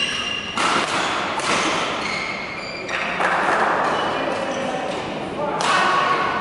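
Badminton rally: racket strikes on the shuttlecock and players' footwork on the court, with voices in the hall.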